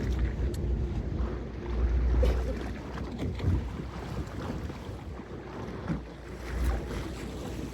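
Low rumble of a tour boat's motor and water noise, with wind buffeting the microphone.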